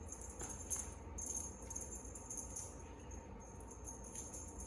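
A cat toy jingling faintly and irregularly as a kitten bats at it, with a few light ticks.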